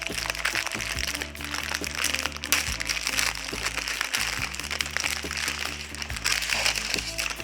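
Background dub music with a steady bass line, over the crinkling and crackling of packaging as a new part is unwrapped by hand.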